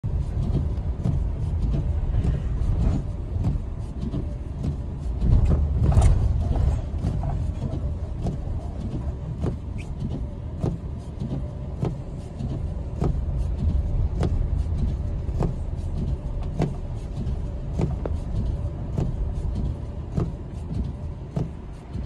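Car driving slowly on a snow-covered road, heard from inside the cabin: a steady low rumble of engine and tyres, with a sharp regular ticking running through it. A louder jolt about six seconds in.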